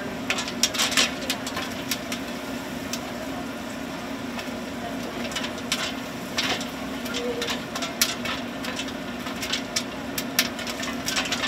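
Steady mechanical hum with scattered sharp clicks and crackles over it.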